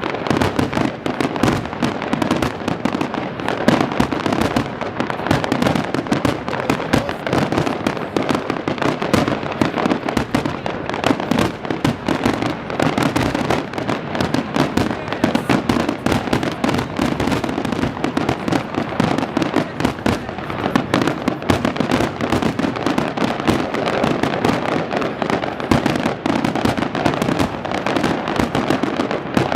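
Fireworks display in full swing: a dense, unbroken barrage of shell bursts and crackling.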